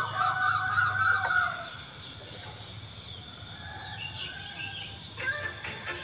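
Birds calling: a loud wavering call in the first second and a half, then a fast run of short repeated notes about five seconds in, over a steady insect chorus.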